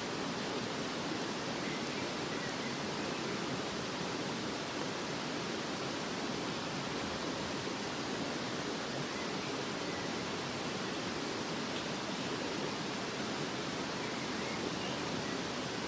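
Steady rushing of a river or stream, an even noise that holds level.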